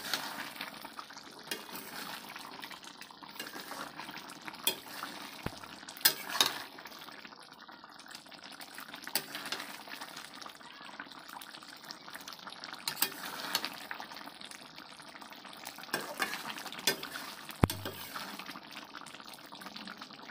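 Potato and soya chunk curry simmering in a pan with a steady bubbling hiss, while a metal spatula stirs it, giving irregular clinks and scrapes against the pan.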